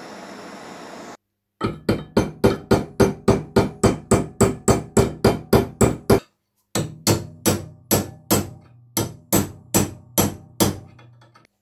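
A gas torch hisses for about a second and cuts off. Then come rapid hammer blows on the torch-heated, bent jaw of an adjustable wrench held in a vise, about four to five blows a second. After a short pause there is a second run of blows, struck partly through a punch, which grows fainter near the end, as the bent jaw is straightened.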